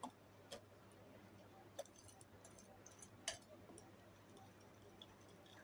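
A small metal wire whisk clicking against a glass bowl while stirring thin dosa batter: a few faint, sharp clicks over a near-silent background, the loudest a little past three seconds in.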